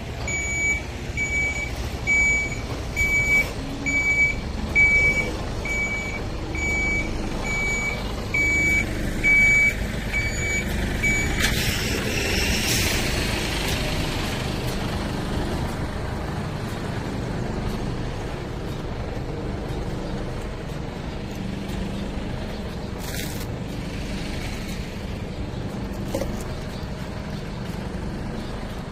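Container truck's reversing alarm beeping steadily, a little faster than once a second, over the rumble of its diesel engine. The beeping stops about eleven seconds in with a burst of air-brake hiss, and the engine keeps running after it.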